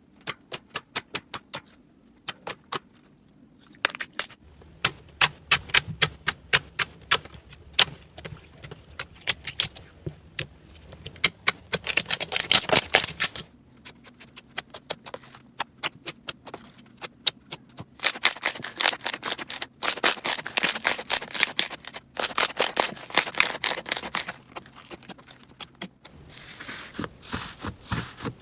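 Slime being squeezed and worked by hand, giving runs of quick, crisp clicks and crackles with short pauses between handfuls.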